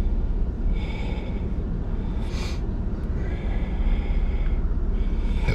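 Steady low rumble of a truck running, heard from inside the cab, with a short breath or sniff about two seconds in.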